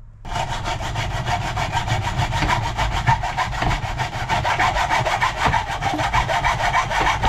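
Sawing through a length of channel cut to size, in fast even strokes that start about a quarter second in.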